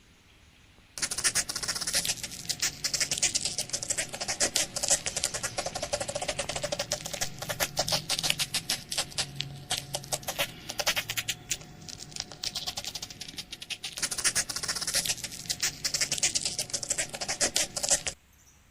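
Sound effect of a little spider's activity: rapid, irregular clicking and scratching that starts about a second in and stops shortly before the end, over a faint low hum.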